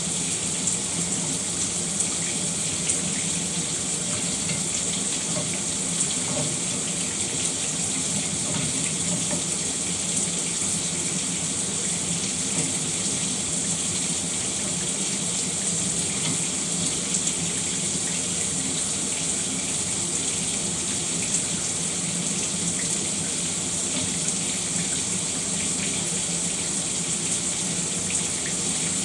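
Shower running: a steady, unbroken spray of water hissing down.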